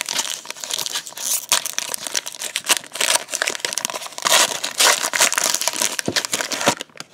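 Foil wrapper of a Topps trading-card pack crinkling and crackling as hands tear it open and crumple it. The crackling is dense and stops abruptly near the end.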